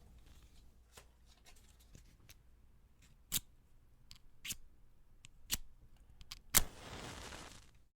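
Cardboard book matches struck against the striker strip again and again: short sharp scrapes about a second apart. The loudest strike, near the end, is followed by about a second of hissing as a match head flares.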